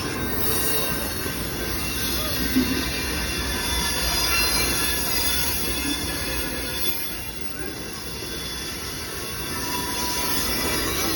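Amtrak Hiawatha passenger train rolling past: a steady rumble of wheels on rail with a thin, high-pitched wheel squeal over it. It eases a little about seven seconds in and comes back up near the end.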